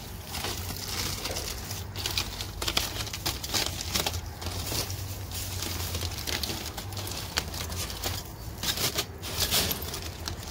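Aluminium foil crinkling and rustling in irregular crackles as gloved hands peel open the foil wrap around a rack of smoked ribs. Over it runs a steady low rumble.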